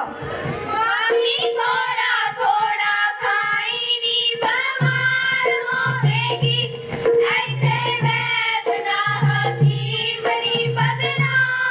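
Girls' voices singing a Punjabi folk boli for giddha dance. About five seconds in, a steady hand-drum beat joins the singing.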